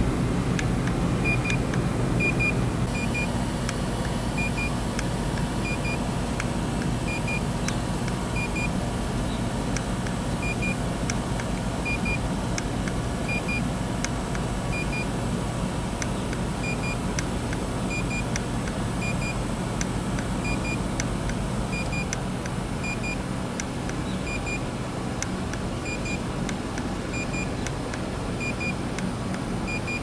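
LG system air conditioner outdoor unit running with a steady low hum. Short double beeps repeat every second or so over it.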